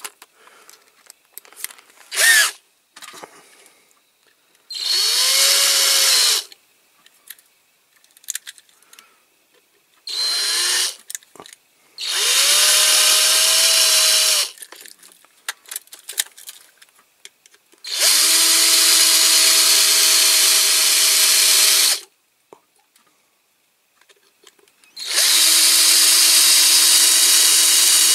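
Cordless drill drilling out a rivet in a die-cast toy's base plate, in five separate runs: two short ones, then longer runs of about two, four and three seconds, each whining up to speed and holding a steady pitch. Light clicks and taps of handling come between the runs.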